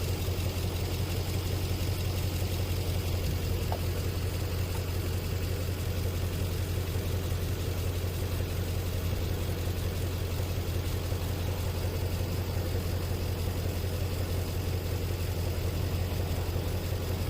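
2005 Nissan Armada's 5.6-litre V8 idling steadily, now running on new spark plugs and coil boots fitted to cure a cylinder 8 misfire.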